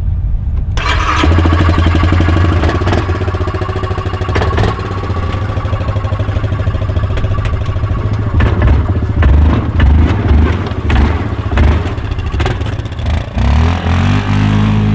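Yamaha Grizzly 700 ATV's single-cylinder engine running under load as it is ridden off a trailer and through snow, with knocks and clatter in the first half and revs rising and falling unevenly later on.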